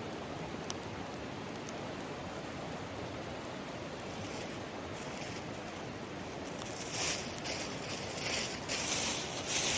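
Mountain stream flowing steadily. About seven seconds in, irregular bursts of high hissing rise over it.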